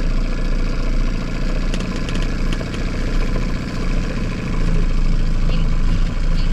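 A boat's engine idling steadily.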